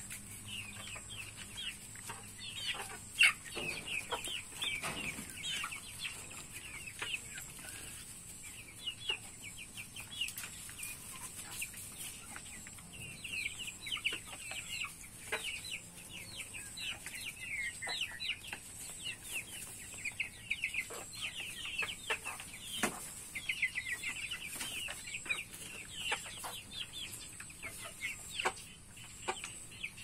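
A flock of young ayam kampung (village) chickens peeping and chirping continuously in many short overlapping high calls, with a sharp click about three seconds in and a steady high-pitched whine underneath.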